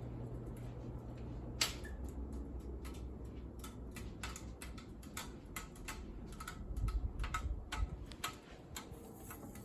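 Ceiling fan with loose blades clicking and crackling irregularly, a rattle caused by blades that are not tightened. A low motor hum stops with a sharp click about a second and a half in, while the ticking carries on.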